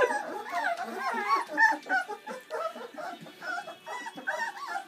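Several young Bernese Mountain Dog puppies whimpering and yipping, with short, overlapping high calls throughout as they crowd around their food bowls.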